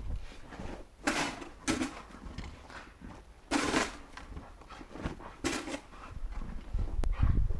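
Snow shovel scraping and scooping snow in separate strokes, one every second or two, as snow is flung into the air.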